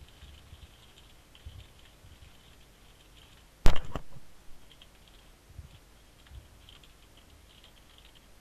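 Computer keyboard being typed on fast, a patter of light key clicks, with one loud sharp knock and a quick follow-up about three and a half seconds in.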